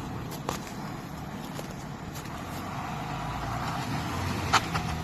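Motor vehicle engine running steadily, its pitch rising a little toward the end, with two sharp clicks, one about half a second in and a louder one near the end.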